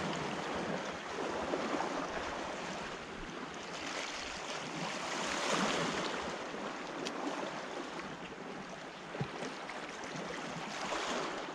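Sea waves washing in, swelling and easing off about every five to six seconds, with a small knock late on.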